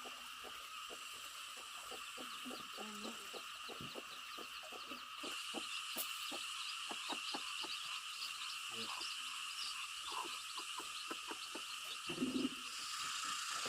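A steady, high-pitched chorus of calling animals with many short, irregular clicks throughout, and a brief louder low sound about twelve seconds in.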